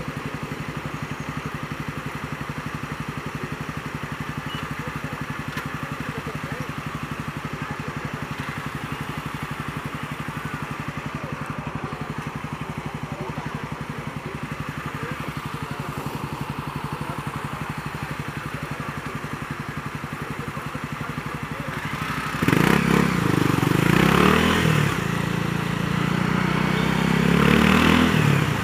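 Honda CB300R's single-cylinder four-stroke engine idling steadily, then revving and pulling away about 22 seconds in, rising in pitch through the gears.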